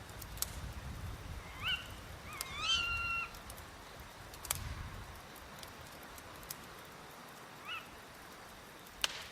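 Owls calling: several short rising calls, the longest held for about a second some two seconds in, with a quieter call near the end. Under them a low wind rumble and a few sharp crackles.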